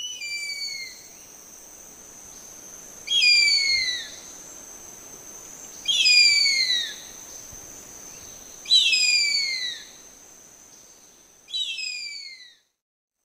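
A bird of prey calling five times, each a screaming call about a second long that falls in pitch, repeated roughly every three seconds, over a faint steady high whine.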